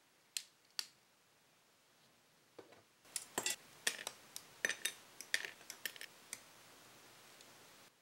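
Sharp clicks and snips of hard plastic model-kit parts: two single snaps in the first second, then a quick run of about a dozen clicks from about three to six seconds in, as hobby nippers cut parts from the runner and pieces are snapped together.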